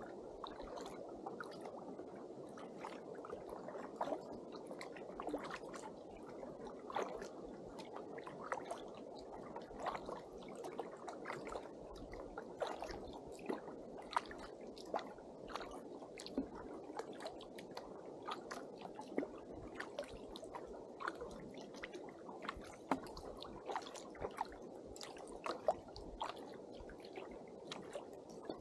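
Water gurgling and lapping against a kayak hull while it is paddled, with many small irregular splashes and drips.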